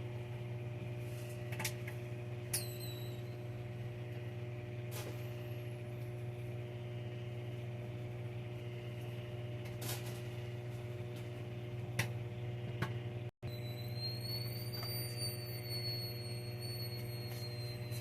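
Steady low electrical hum with a few faint clicks and taps. The sound drops out for an instant about thirteen seconds in, and a faint high whine follows to the end.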